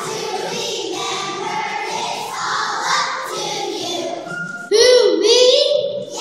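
Choir of young children singing on stage. About three-quarters of the way in, a single voice much closer and louder rises over the choir.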